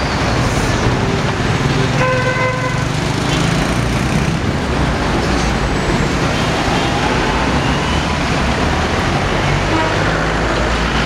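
Steady street traffic noise with vehicle engines running, and a single short car-horn toot about two seconds in.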